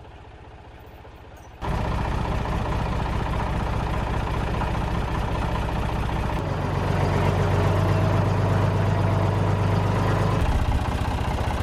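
An engine running steadily, starting suddenly a little over a second in, with its note shifting about halfway through and again near the end.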